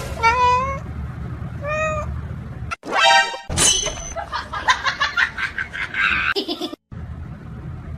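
A cat meowing twice in short pitched calls. After a sudden change, a shrill cry and a busy stretch of music follow.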